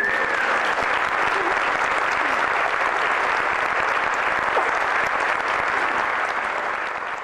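Theatre audience applauding steadily with dense clapping at the end of a sung duet, easing off slightly near the end.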